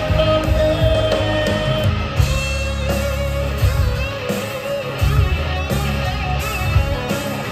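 Live band playing an instrumental passage through a PA: drum kit keeping a steady beat under bass, guitars and fiddle.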